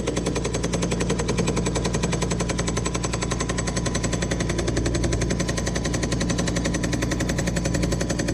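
Harbor Freight air impact gun hammering continuously in rapid, even blows as it tries to back out a seized suspension bolt that will not come loose. It stops at the very end.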